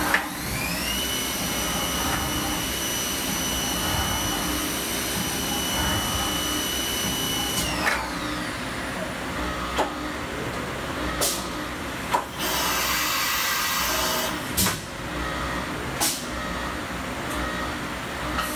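1995 Fadal VMC 4020 CNC mill's spindle spinning up with a rising whine, running at a steady pitch for about seven seconds, then winding down. After it come several sharp clunks and a roughly two-second hiss of air.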